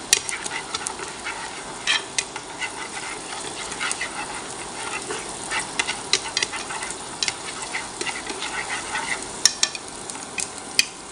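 Minced garlic frying in hot oil in a pan: a steady sizzle with scattered sharp crackles and taps as wooden chopsticks stir it. The garlic is being fried until golden.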